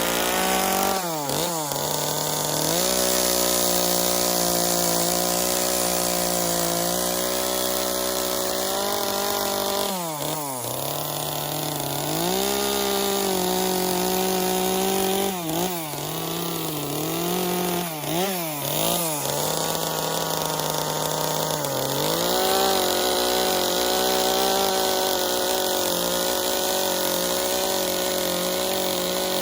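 Chainsaw running steadily while carving wood. Its speed drops sharply and picks back up several times.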